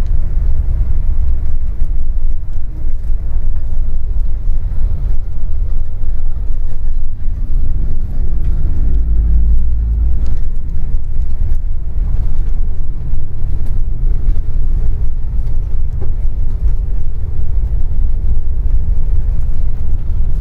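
Bus engine and road rumble heard from inside the moving bus's cabin: a steady, loud low rumble that swells for a moment about nine seconds in.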